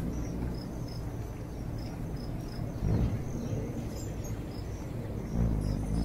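Outdoor nature ambience: short high chirps repeating two or three times a second over a low, rumbling background that swells about three seconds in and again near the end.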